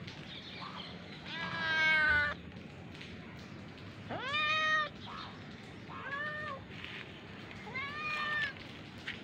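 Kitten meowing four times, the first two calls longest and loudest, the last two shorter and quieter.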